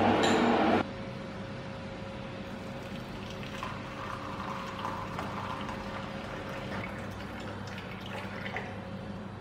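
Electric kettle rumbling at the boil, cut off abruptly under a second in. Then hot water is poured in a thin stream into a ceramic cup, trickling and splashing gently.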